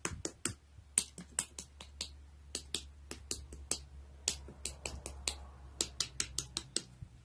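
A quick, irregular run of sharp clicks or taps, about three or four a second, over a steady low hum that stops near the end.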